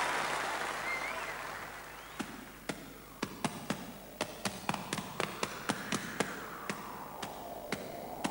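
Applause dies away over the first couple of seconds. Then sharp, irregular taps start, a few a second, over a soft tone that slowly rises and falls.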